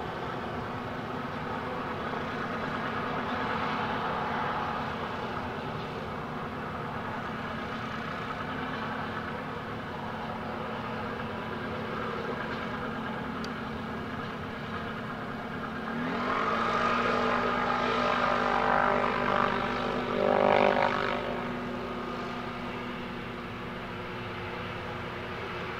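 Boeing 737-800's CFM56-7B turbofan engines running at taxi power as the jet taxis. About sixteen seconds in, a tone rises and the sound grows louder for several seconds, then settles back.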